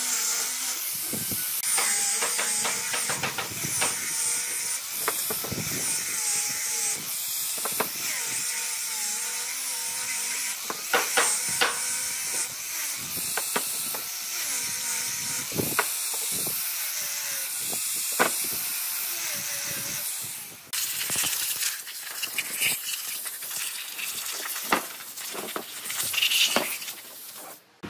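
Handheld power tool working wood, with a hissing grind and a motor pitch that wavers as it is pressed against the work, and scattered sharp clicks; the sound changes abruptly about two-thirds through.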